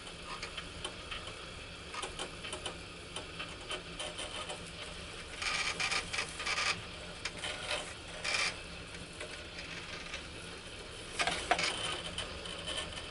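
Plastic knife held by a robot arm rasping as it saws through an apple, with louder scraping bouts around the middle and again near the end, over a steady low hum.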